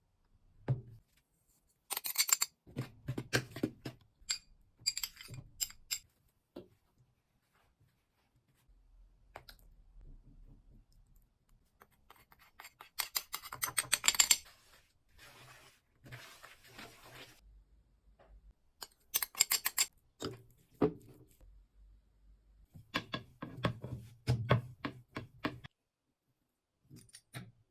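Kitchen preparation sounds: bursts of clicking, tapping and rustling as ingredients and utensils are handled, with quiet stretches in between.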